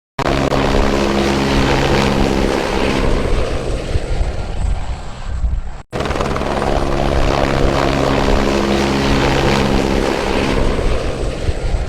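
Helicopter running close by: a loud, steady drone of rotor and engine. It breaks off for an instant about six seconds in, then carries on the same.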